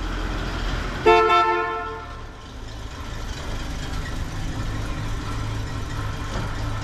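A car horn sounds once, loudly, for about a second, followed by a steady low hum.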